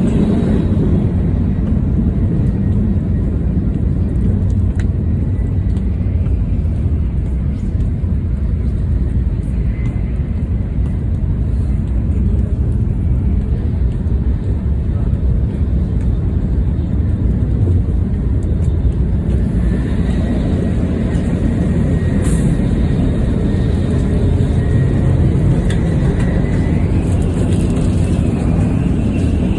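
Tokaido Shinkansen bullet train running as it nears a station: a steady low rumble, joined after about twenty seconds by faint high whining tones that shift in pitch.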